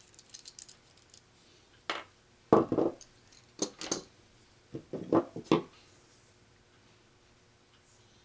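Clicks and clunks of a hand crimping tool and small metal spade connectors being handled, in four short clusters.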